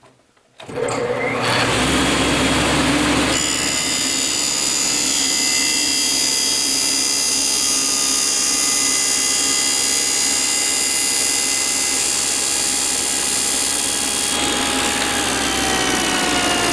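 A table saw switches on about a second in, spins up to speed and runs steadily while its blade is raised up into a clamped 2x4 sacrificial fence to cut a relief notch. Near the end its pitch sags slightly.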